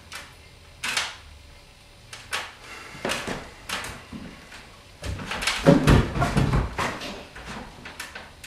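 Irregular knocks and clatter of a timber board being handled against a wall, with a denser run of heavier thuds and bangs a little past the middle.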